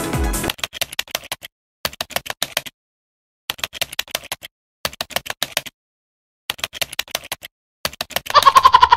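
Typing sound effect: rapid keyboard clicks in six short bursts with silent pauses between them, the last burst louder and carrying a ringing tone.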